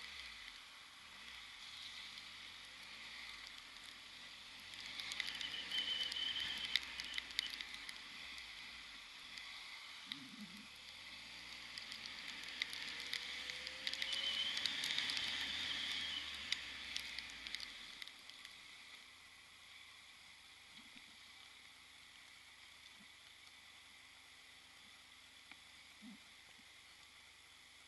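Muffled wind and road noise of a motorcycle riding through rain, with raindrops ticking on the rain-spattered camera. It swells twice in the first part and settles lower and steadier for the last ten seconds or so.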